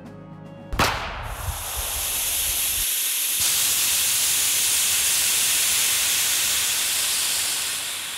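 A sudden bang about a second in, then a loud, steady hiss of escaping steam that fades near the end: a steam locomotive's firebox backdraft explosion.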